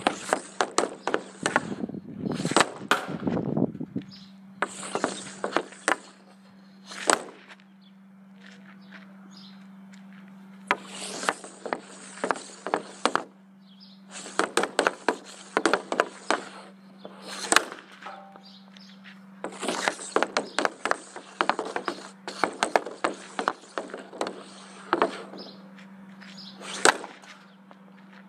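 Hockey stick blade working pucks across a plastic shooting pad: stretches of rapid clicking and scraping a few seconds long, with pauses between. A few single sharp cracks of pucks being shot stand out.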